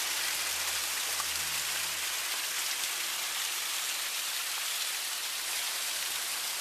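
Water from a boulder waterfall splashing down over the rocks in a steady rush. A low hum underneath stops about two seconds in.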